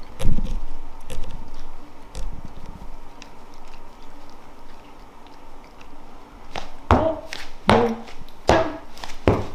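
Tortoiseshell cat grooming, licking and nibbling at her fur with short wet mouth sounds. There is a low thump just after the start and a run of sharper short sounds in the last few seconds.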